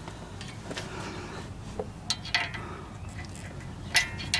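A few light metallic clicks and clinks as a sway bar quick-disconnect link is worked into place on its mount, the sharpest two near the end.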